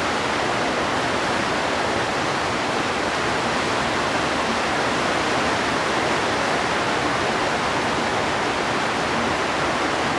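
Rain falling, a steady, noisy hiss with no breaks.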